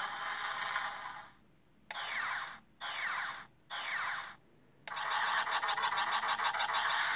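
Electronic sound effects from the small built-in speaker of a Revell Millennium Falcon model with light and sound functions: a steady rushing engine sound that cuts off about a second in, three short zaps each falling in pitch, then a longer pulsing engine sound.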